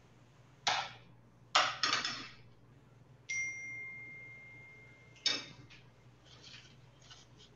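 Dishes and kitchen utensils knocking and clattering on the counter, a few separate knocks. About three seconds in comes one clear ringing ding, like struck metal, that fades away over about two seconds.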